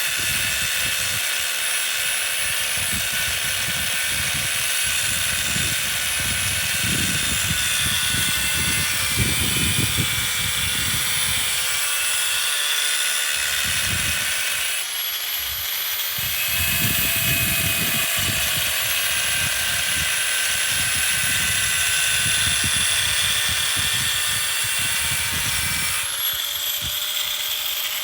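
A motor-driven metalworking tool running with a steady high whine over an irregular low rumble. The pitch of the whine changes abruptly twice, about halfway through and near the end.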